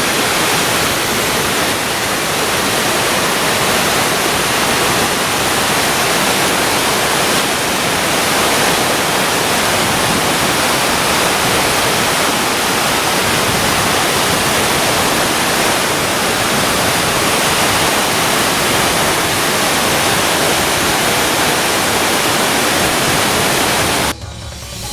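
Waterfall rushing: a loud, steady roar of falling water that cuts off abruptly near the end.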